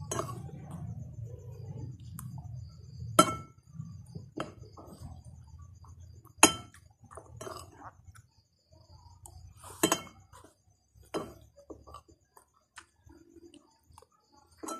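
Metal spoon clinking and scraping against a ceramic plate while eating rice: a sharp clink every couple of seconds, the loudest about a third of the way in and again near the middle.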